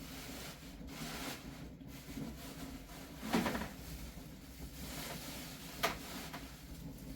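Steady hiss of falling rain, with a short rubbing knock about three seconds in and a sharp click near six seconds.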